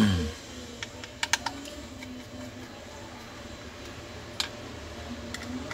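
Sharp clicks and light taps of hardware being handled as an SSD is fitted into a laptop's hard-drive bracket: a loud knock at the start, a quick cluster of clicks about a second in, and single clicks later on.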